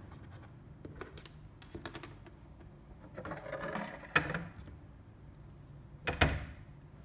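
Handling noise from a plastic figure and its display base: a few small clicks, a short rustle ending in a sharp click, then a louder knock about six seconds in as the pieces are set down.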